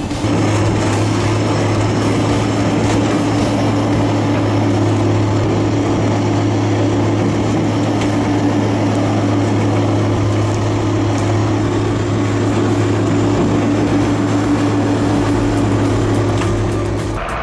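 A heavy machine's engine running steadily under load: a constant low drone with no change in speed.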